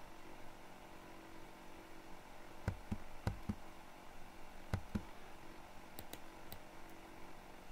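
Computer keyboard spacebar pressed three times, each press a pair of dull knocks, then a few light, sharp mouse clicks near the end, over a faint steady hum.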